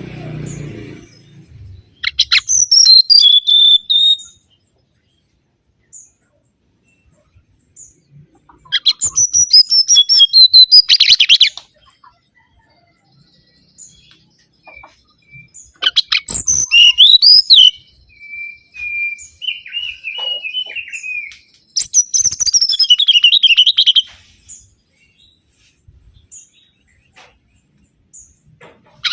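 Mangrove whistler song: four loud bursts of rapid, high, chattering notes, separated by pauses of a few seconds, with a softer run of lower whistled notes in the middle.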